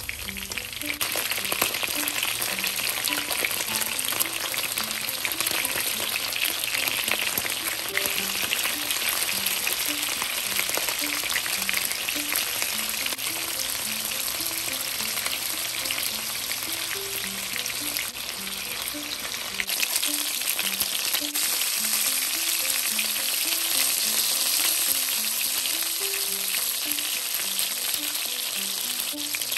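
Cornstarch-and-egg-coated chicken breast pieces sizzling steadily as they pan-fry in shallow oil in a nonstick skillet. Soft background music runs underneath.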